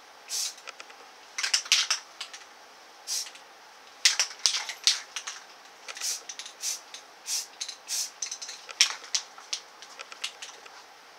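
Aerosol spray paint can sprayed in many short bursts of hiss, each a fraction of a second, some coming in quick runs of two or three, as a base coat goes onto a rifle stock.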